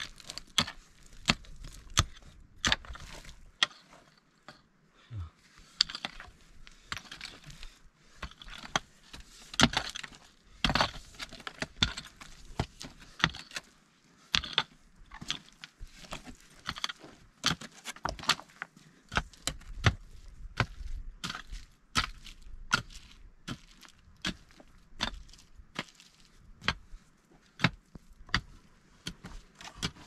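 Metal digging tools striking and scraping stony ground: irregular sharp clinks of steel on rock, with dirt and gravel scraped and shifted between the strokes.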